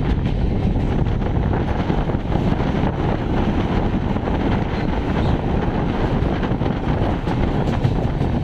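Passenger train running at speed: a steady rumble of wheels on rails, with rushing wind buffeting the microphone.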